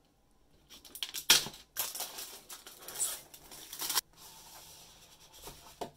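Scissors snipping and plastic shrink-wrap crinkling and tearing as it is cut and pulled off a cardboard box, a dense crackle with one sharp snip about a second in, stopping abruptly about four seconds in. After it, a fainter rubbing hiss of cardboard as the inner box slides out of its sleeve.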